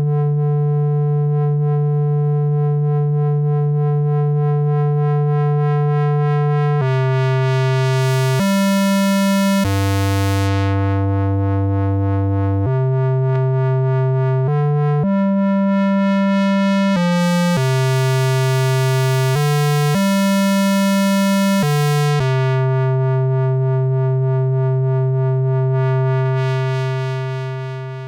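Yamaha CS01 analog monosynth playing one note at a time: a long held low note, then a run of notes stepping up and down in pitch, with a bright hiss coming and going over some of them. It ends on a held note that fades out.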